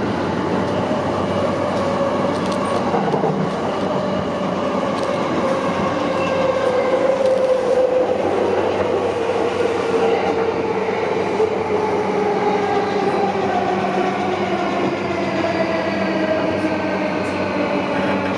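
Heard from inside the carriage, a JR Yamanote Line E235-series commuter train runs over a steady rumble of wheels on rail. The traction motors' whine falls slowly in pitch as the train slows for the next station.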